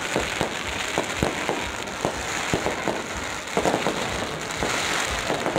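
Fireworks going off: a steady run of sharp pops, about two or three a second, over a hissing crackle, growing denser about three and a half seconds in.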